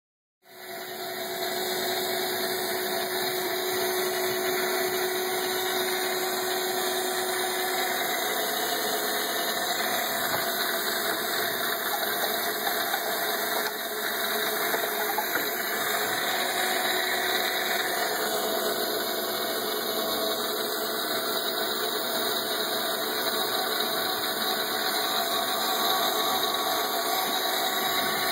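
Small 12-volt electric oil-change pump switching on and then running with a steady hum, pulling used engine oil out of a MerCruiser 502 MAG MPI marine engine through a hose into a bucket.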